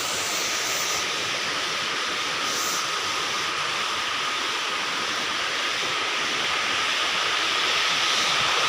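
Waterfall pouring: a steady, even rush of falling water, growing a little louder near the end, with a thin steady high tone running through it.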